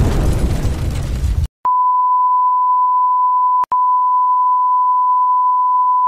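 Loud hiss of TV static that cuts off suddenly about a second and a half in. It is followed by the steady single-pitch test tone of a 'Please Stand By' broadcast test card, broken by a short click a little past the middle.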